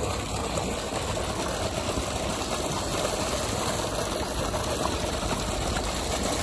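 Steady rush of water pouring from a solar-powered tubewell's delivery pipe, with the pump running.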